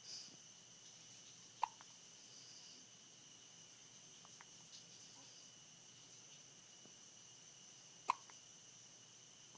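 Two sharp hiccups, one about a second and a half in and another near the end. Faint steady high-pitched tones run behind them.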